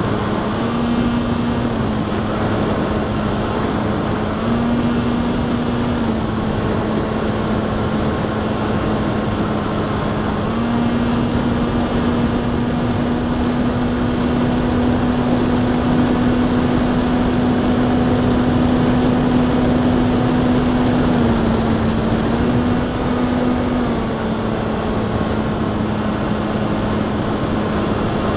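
Motor and propeller of an FPV model aircraft in flight, heard from on board as a steady drone under a dense rush of wind noise. Its pitch steps up slightly several times, holding higher for about ten seconds in the middle.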